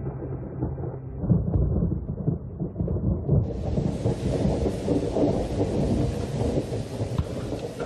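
Thunderstorm: thunder rumbling low and continuously. About three and a half seconds in, the hiss of heavy rain comes in suddenly and carries on with the rumble.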